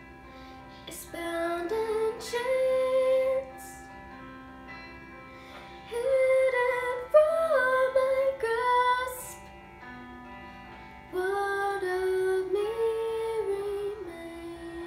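A young female voice singing a slow song in three phrases with short breaks between them, over soft, held accompaniment notes.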